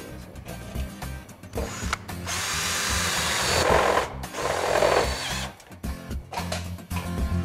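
Cordless drill driving screws into galvanized steel framing profiles, in two runs of about a second and a half each, over background music.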